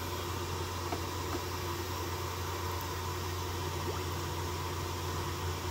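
Steady background noise: a constant low hum under an even hiss, with no distinct event.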